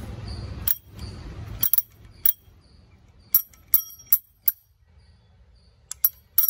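Yulu electric bike's handlebar rotary bell rung by hand, about nine short metallic dings in small bursts.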